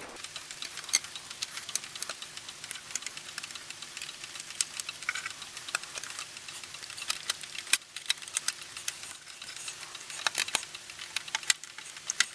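Irregular light clicks and taps of small hard objects being handled, with no steady rhythm.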